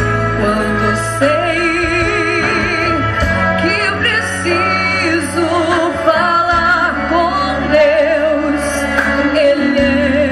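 Orchestra playing a slow hymn, with a female solo voice singing a wavering melody over a sustained bass line.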